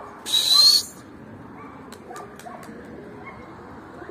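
Pigeons cooing faintly. About half a second in comes one loud, short, breathy whistle that rises in pitch, and a few light clicks follow.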